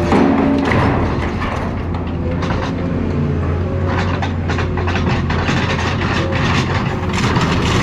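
Heavy scrap-demolition machine tearing into cars: irregular metal crunching, clanking and scraping over a steady low diesel-engine drone.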